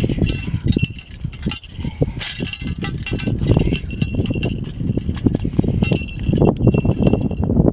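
Wind buffeting the microphone in rough gusts, with repeated light metallic clinks and an on-and-off thin ringing over it.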